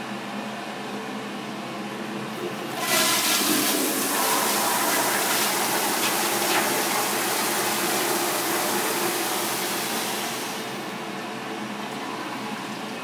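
School toilet flushing with a strong rush of water that surges louder about three seconds in and eases off after about ten seconds. The toilet is overflowing, sending water out onto the floor.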